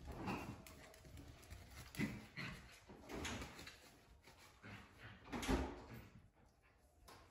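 Wire fox terrier puppies at play: a handful of short, sudden dog sounds, the loudest about five and a half seconds in, dying down near the end.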